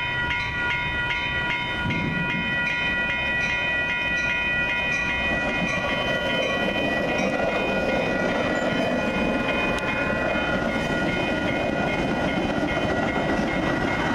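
Grade-crossing warning bells ringing as a Metra commuter train of bilevel gallery cars approaches and passes. From about five seconds in, the rumble of the cars' wheels on the rails builds and takes over from the bells.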